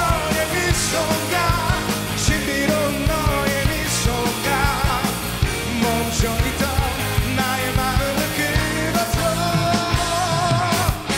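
A male vocalist singing a Korean-language song over a live rock band of drums and electric guitars.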